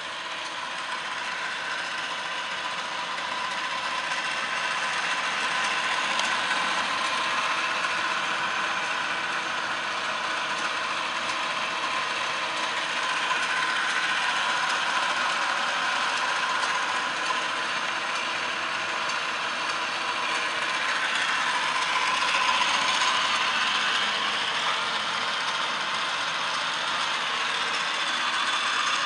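1981 Hardinge HLVH toolroom lathe running: a steady mechanical whir with a gear whine, growing a little louder over the first few seconds.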